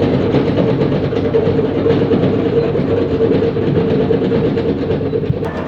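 Diesel engine of a JCB construction machine running hard with a rapid mechanical rattle and a steady whine. A click sounds near the end, after which the higher rattle eases.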